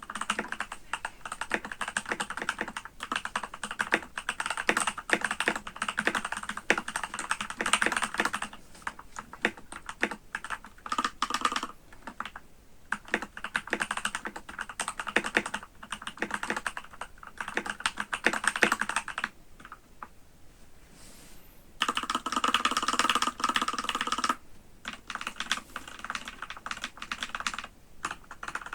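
Typing on an Epomaker GK68X mechanical keyboard with Durock L7 67 g linear switches, lubed with 205g0 and filmed, under POM jelly keycaps. Runs of fast keystrokes come with a couple of short pauses, and there is a denser, louder flurry of about two seconds in the second half.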